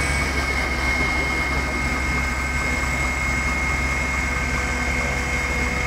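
Heavy engine of a fire appliance running steadily, a constant low drone with a thin steady whine above it.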